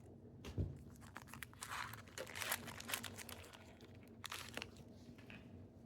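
Trading card pack wrapper being torn open and crinkled, with the cards inside shuffled: faint, scattered rustles and crackles.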